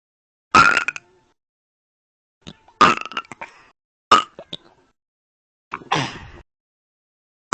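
Four loud burps, one after another, one to two seconds apart, each trailing off in a few short clicks.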